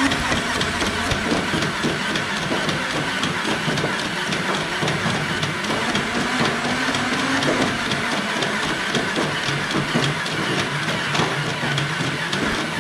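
Motorized Nerf N-Strike Elite Rhino-Fire double-barrel blaster firing full-auto: its flywheel motors whine steadily while foam darts are shot in a rapid, continuous stream of clicks.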